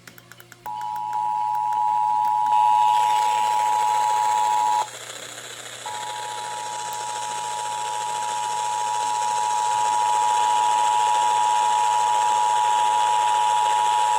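Emergency Alert System attention signal on a radio broadcast: the steady two-tone alarm (853 and 960 Hz sounding together) that opens a Required Monthly Test. It breaks off for about a second roughly five seconds in, then resumes for about eight seconds over a faint hiss.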